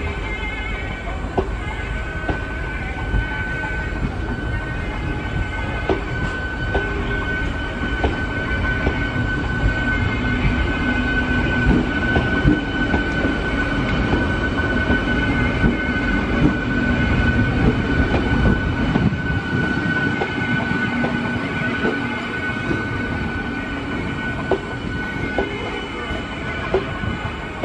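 MEMU electric multiple-unit train rolling past at low speed, with a continuous rumble of wheels on rails and irregular clicks as the wheels cross rail joints. A steady high whine runs over the rumble.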